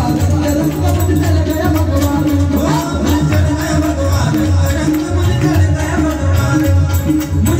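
Hindi devotional song (bhajan) music with a steady beat and percussion, an instrumental passage without lyrics.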